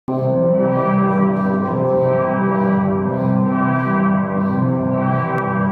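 Classical music with sustained chords and a steady pulse, starting abruptly at the outset; a brief click about five seconds in.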